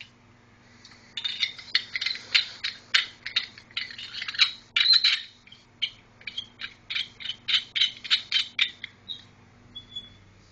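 Two-piece paintball gun barrel being handled and screwed together: a quick string of light metallic clicks and scrapes that starts about a second in and stops near the end.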